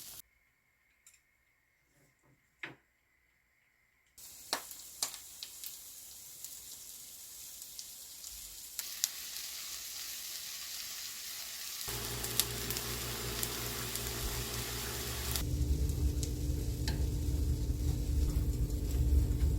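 Food sizzling as it fries in oil in a pan, coming in after a few near-silent seconds with a few light clicks and growing louder in steps; a steady low hum joins in for the last few seconds.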